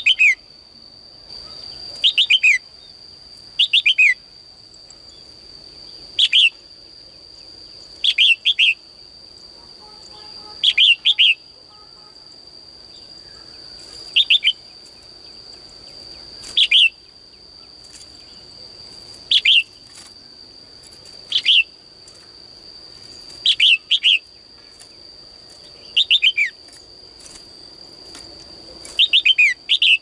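Female red-whiskered bulbul calling in a cage: short bursts of quick, falling chirps repeated about every two seconds, some in pairs, with a steady high-pitched whine running underneath.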